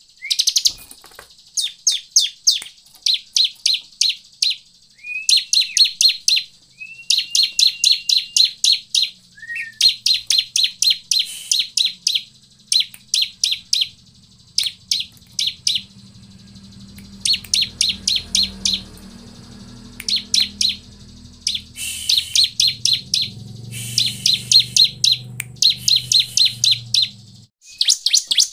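Bar-winged prinia (ciblek) calling: rapid strings of sharp, high chip notes in bursts of about a second, one after another with short breaks, with now and then a short rising note.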